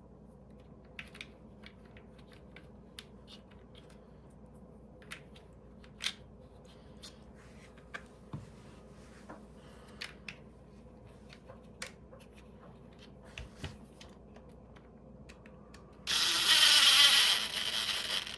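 Scattered light clicks and taps of plastic parts being handled on a dishwasher control panel, then a loud, noisy burst of about two seconds near the end.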